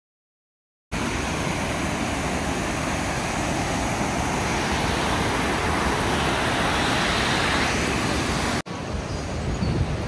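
Steady roar of water pouring over a low dam and churning into whitewater below, starting abruptly after about a second of silence. Near the end it cuts to a quieter rush of water.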